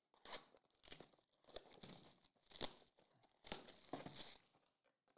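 Faint, irregular crinkling and tearing as a trading-card hobby box's seal is slit with a pocket knife and its foil-wrapped packs are handled, coming in a string of short rustles.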